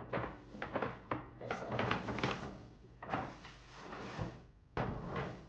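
A box and its packaging being handled: a run of knocks, scrapes and rustles, with a sharper knock near the end.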